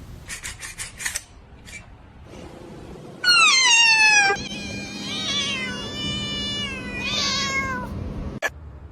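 A cat meowing: one loud meow falling in pitch, then a longer, wavering meow. A few quick taps sound near the start.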